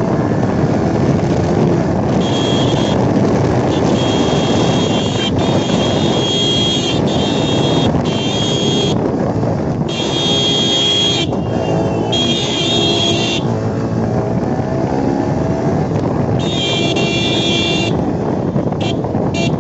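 Yamaha R15 V3's single-cylinder engine running under way through town traffic, heard from the rider's seat, with steady road and traffic noise.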